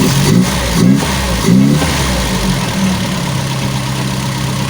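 Toyota 5K four-cylinder engine idling steadily, with three short rises in pitch in the first two seconds as it is revved briefly. It is running smoothly now that its hard-starting problem is cured.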